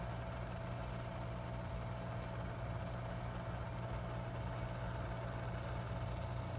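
Hot air rework gun running steadily, blowing hot air onto a diode's pins to melt the solder on a laptop motherboard. It makes an even hum and hiss that does not change.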